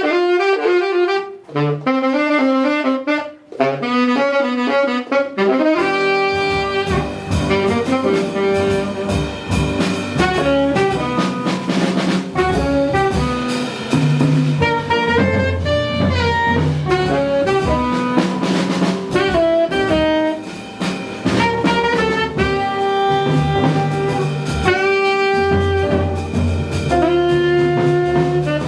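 Live small-group jazz: a saxophone plays an unaccompanied opening phrase, and about six seconds in the rhythm section comes in with bass and drums under the saxophone melody.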